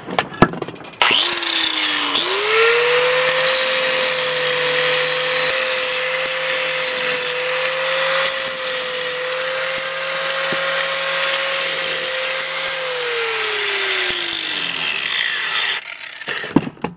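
Electric angle grinder switched on about a second in and spinning up, grinding the end of a steel clamp clean of its protective coating with a steady whine, then switched off and winding down near the end.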